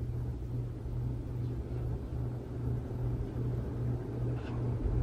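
52-inch Hampton Bay Southwind V ceiling fan running on high speed: a steady low motor hum with the rumble of air moved by the blades.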